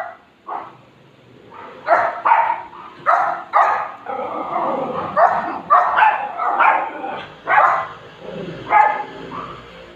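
Two pet dogs barking over and over, short sharp barks in quick runs with brief gaps, the way they bark when they hear a sound.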